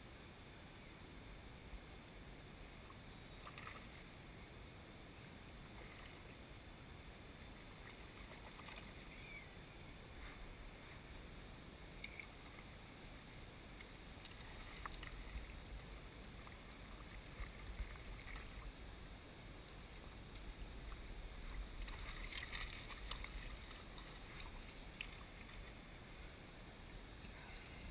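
Faint lapping and splashing of water around a small boat, with small surface splashes from a hooked trout being played on a fly rod.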